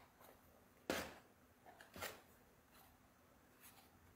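Quiet handling of a cardboard phone box by gloved hands as the outer sleeve is slid off and the lid lifted, with a sharp tap about a second in, another about two seconds in, and faint brushing scrapes between.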